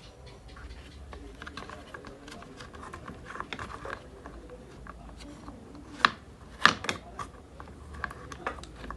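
Scattered small clicks and taps of tools and parts being handled during an induction cooker repair, with a few sharper knocks about six to seven seconds in.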